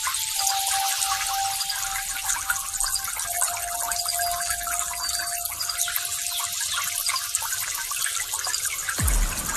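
Water rushing and splashing, with a steady whine behind it that steps down slightly in pitch twice. A low thump comes about nine seconds in.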